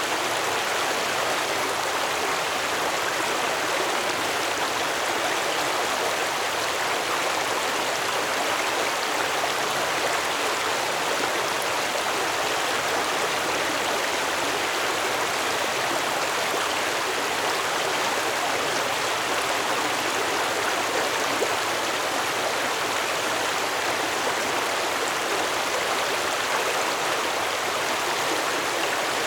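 Stream water flowing, a steady even rush with no change in level.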